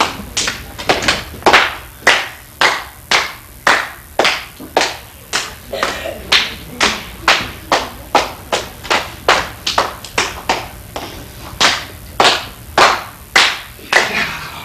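Children's hand claps, single sharp claps coming in a steady rhythm of about two a second.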